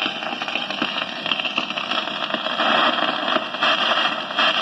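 Steady hiss with fine crackles: the surface noise of an old record playing on after the song has ended.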